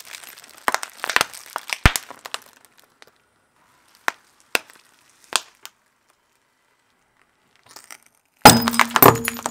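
Brittle objects cracking and crunching as a car's tyre rolls over them. A run of crackles fills the first two seconds or so, a few single cracks follow in the middle, and near the end comes a sudden loud burst of breaking and crunching.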